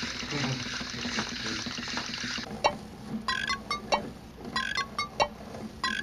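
A steady hiss, then from about two and a half seconds in an irregular run of sharp clicks, many with short pitched blips.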